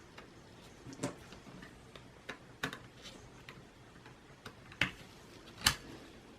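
Scattered light clicks and taps of a laptop memory stick (SODIMM) being handled and fitted into its slot, about one a second, with the loudest click near the end.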